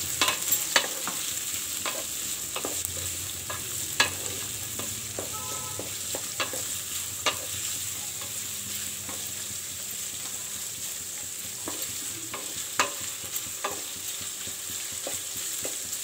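Sliced onions frying on high flame in oil in a metal kadhai: a steady sizzle. A wooden spatula stirring them scrapes and knocks against the pan with scattered sharp clicks, the loudest about four seconds in and again near the end.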